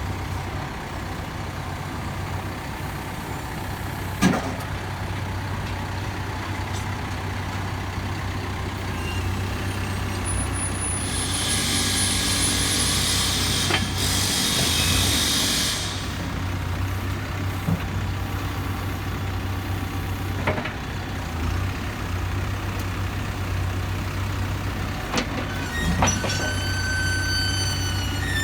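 CAT 420F IT backhoe loader's four-cylinder diesel engine running steadily, with a hiss lasting about four seconds in the middle and a few sharp knocks. A brief high squeal comes near the end.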